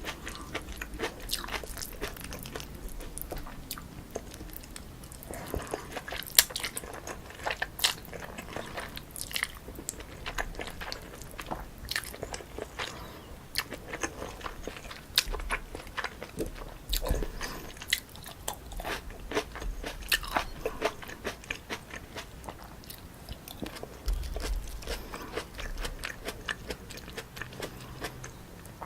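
Close-miked eating of spicy cold chewy noodles: steady chewing with many sharp crunches of crisp toppings between bites.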